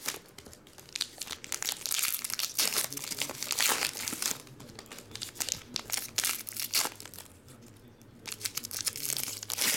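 Foil trading card pack wrappers crinkling and tearing as they are peeled open by hand, in several rustling bursts with a quieter stretch in the middle.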